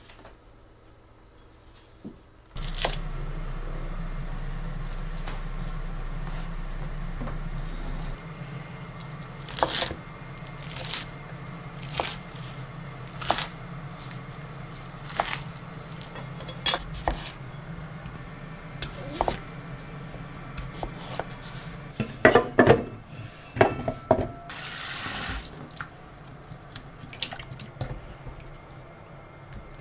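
Kitchen knife cutting turnip greens on a wooden cutting board, single chops about once a second over a steady low hum. Near the end a few louder knocks and a short rush of tap water, then turnip wedges being swished and rinsed in a bowl of water.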